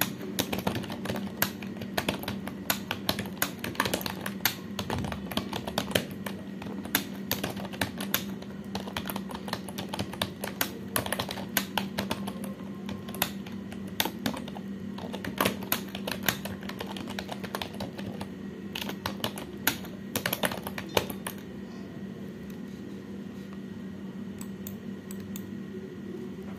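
Fast touch-typing on a computer keyboard, a rapid irregular patter of key clicks at about four keystrokes a second, which stops about five seconds before the end as the typing test's time runs out. A steady low hum runs underneath.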